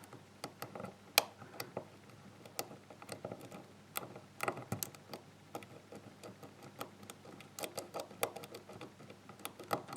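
Lock pick and tension wrench working the serrated pins of a GeGe euro-cylinder lock during single-pin picking: scattered small, irregular metallic clicks and ticks, with a few sharper ones about a second in and around four to five seconds in.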